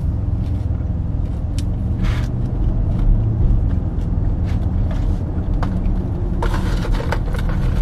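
Steady low rumble of road and engine noise inside a moving car's cabin, with a few brief rustles of a paper fast-food package.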